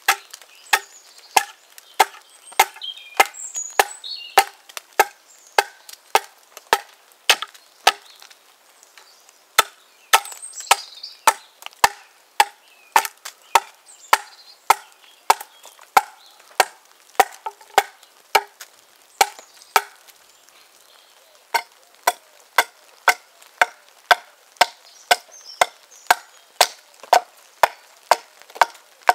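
Hand-forged T-shaped axe, wrought-iron body with a steel bit, hewing down the edge of an upright cleft ash plank: a steady run of sharp chops, about two a second, with a short pause about two-thirds of the way through.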